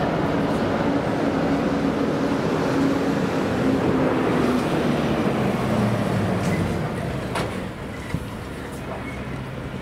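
Passenger train running past on the main line, a steady rumble with a low tone that falls in pitch about five seconds in; the level drops about seven seconds in.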